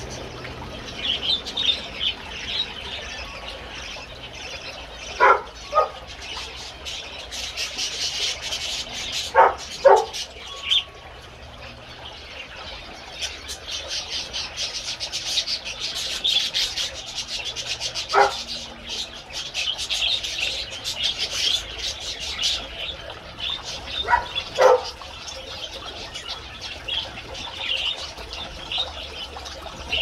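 A mixed aviary flock of budgies, finches, lovebirds and cockatiels chirping continuously. Louder short calls stand out, mostly in pairs, about five, ten, eighteen and twenty-four seconds in.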